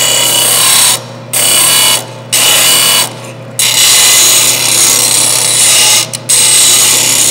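Disc sander grinding the corner of a metal plate against its spinning abrasive disc, rounding the corner over. The grinding comes in short passes and drops out four times for a moment as the part is lifted and turned, with the motor's steady hum beneath.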